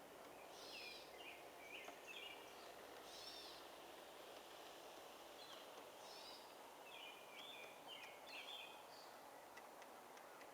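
Faint bird song: short chirping phrases that recur every few seconds, over a steady faint outdoor background noise.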